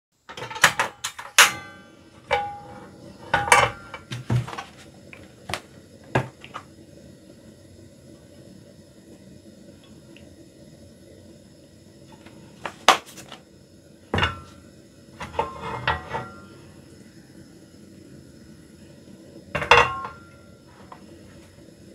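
Dishes, pots and cutlery clinking and clattering in a kitchen: short bursts of knocks and metallic rings, some ringing briefly, in a handful of clusters with quiet gaps between, over a faint steady hum.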